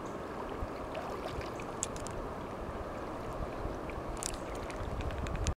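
River water rushing and gurgling steadily around a raft on a Class II river, with a few faint knocks; it cuts off suddenly at the end.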